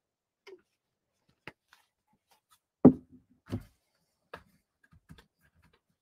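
Light knocks and clicks of a glue bottle, brush and glue dish being handled on a tabletop. The loudest is a knock about three seconds in, followed by another about half a second later and a few fainter ticks.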